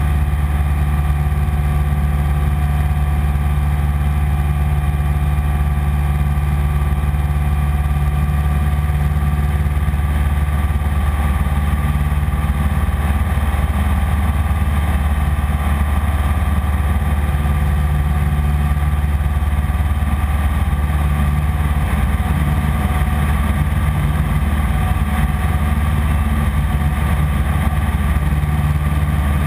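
Piper PA-15 Vagabond's small piston engine and propeller running steadily in cruise flight, a loud, even drone heard from inside the cockpit.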